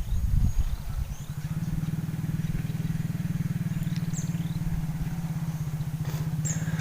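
A small engine running steadily, low and evenly pulsing, settling into a constant drone about one and a half seconds in. Short high bird chirps come and go above it.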